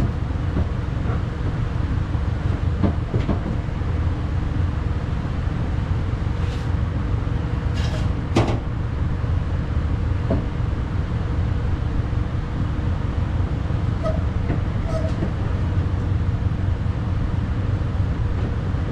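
Scattered clicks and knocks of window regulator parts being handled and fitted inside a Ford Ranger's door, over a steady low rumble.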